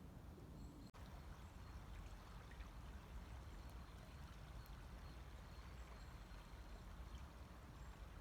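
Faint, steady rush of a river flowing, with a brief break about a second in.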